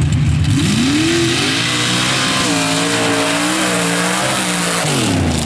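Small-tire mud bog truck's engine at idle, then revving hard from about half a second in as the truck launches through the mud pit. The pitch climbs, holds high and wavering, then falls away near the end. A loud hiss of spinning tires flinging mud rides over the engine through the middle of the run.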